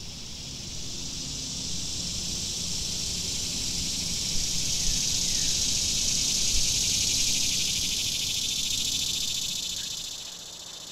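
Dense chorus of summer insects: a steady, shrill high-pitched buzzing that swells over the first couple of seconds and drops back near the end.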